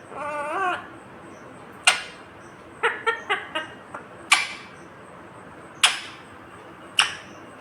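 Ringneck parakeet calling: a short warbling talk-like call at the start, then sharp, shrill single squawks every second or two, with a quick run of four chirps about three seconds in.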